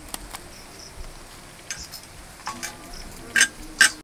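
A few short scrapes and clicks as a snakehead fish is scaled and cut on a boti blade. The two loudest strokes come near the end, about half a second apart.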